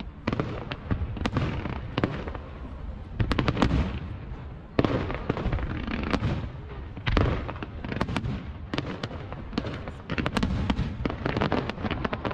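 Fireworks display: many sharp bangs of bursting shells in quick, irregular succession, packed densely in places.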